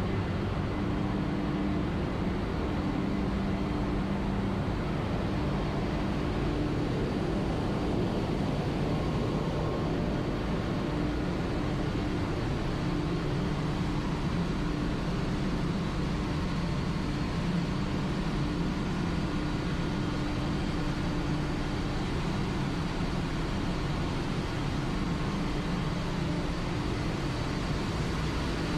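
Steady machinery noise in a tanker ship's engine room: a dense, unchanging din with a steady low hum.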